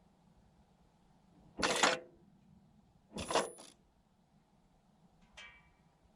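Sachs gear-shift actuators of a LADA Vesta's AMT 2.0 robotized gearbox, engine off, working in short mechanical bursts as the gearbox is shifted between gears. There is a loud burst about one and a half seconds in, a double burst around three and a half seconds, and a faint one near the end. There is no squeak from the actuators, as the owner has it.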